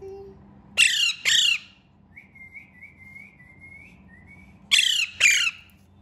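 Alexandrine parakeet squawking while it is spoon-fed: two loud harsh squawks about a second in, a run of about six soft short chirps, then two more loud squawks near the end.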